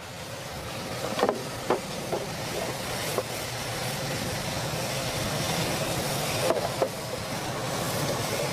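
Plastic clips and lid of a car's air filter housing clicking and knocking as it is unclipped and opened by hand, over a steady hiss that slowly grows louder.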